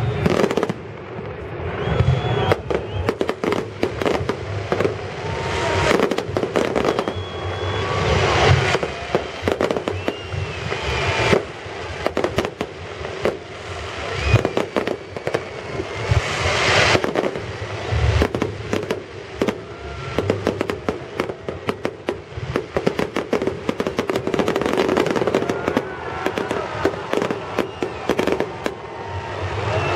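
Festive fireworks salute: a dense, continuous barrage of bangs and crackles, swelling into louder bursts every few seconds.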